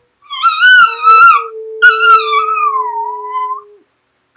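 Chihuahua howling like a wolf: two drawn-out howls, the second falling in pitch and trailing off about three and a half seconds in. A man holds a lower steady howl alongside.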